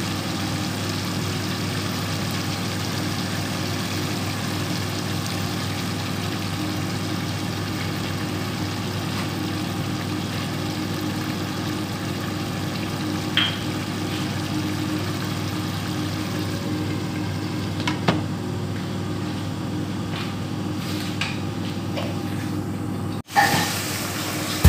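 Pot of chicken adobo simmering on the stove: a steady hiss of bubbling liquid over a low, even hum, with a couple of faint clicks.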